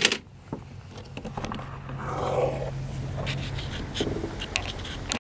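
Handling noise as the camera is moved around: scattered clicks and knocks with a stretch of rustling and scraping in the middle, over a faint low steady hum.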